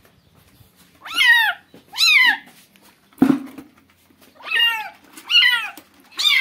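Young kittens meowing in distress while sitting wet in a bucket of bath water: about five high calls, each falling in pitch, with a single sharp knock about three seconds in.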